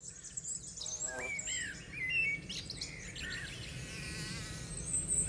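Birdsong: several small birds chirping and whistling in quick, varied short phrases. It starts abruptly, out of silence.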